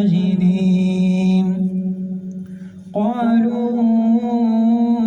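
A man reciting the Quran in melodic tajwid style, stretching the vowels into long held notes. The note fades out about two seconds in, and a new long note starts about three seconds in.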